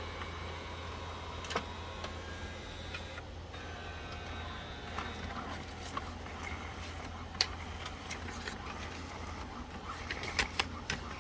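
HP OfficeJet Pro 8710 inkjet printer running a copy from its automatic document feeder: a steady mechanical whine over a low hum, the whine dropping away about halfway through. Sharp clicks come now and then, several in quick succession near the end.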